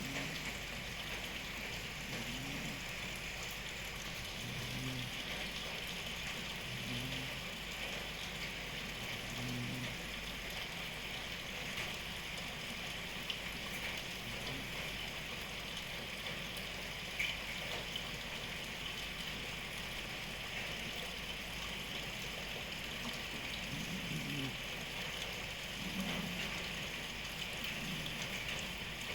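Steady rain, with a sleeping cat snoring underneath it: a low breath about every two to two and a half seconds, which stops for a long stretch in the middle.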